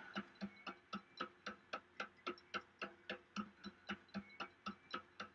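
Even, clock-like ticking, about four ticks a second, with a faint held musical tone underneath.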